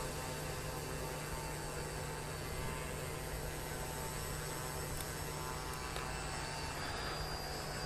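Twin electric motors and propellers of a large RC plane running at low throttle while it taxis, a steady hum.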